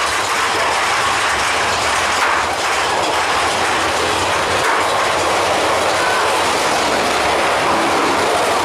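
Big Thunder Mountain Railroad mine-train roller coaster cars running along the track through a tunnel, a steady loud noise heard from a seat on the moving train.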